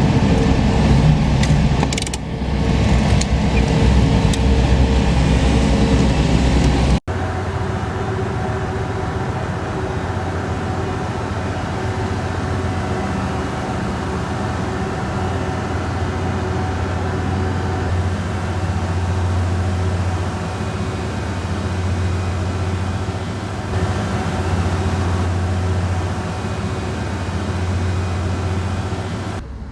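Motor vehicle engine noise. About seven seconds in it cuts abruptly to a steady low drone.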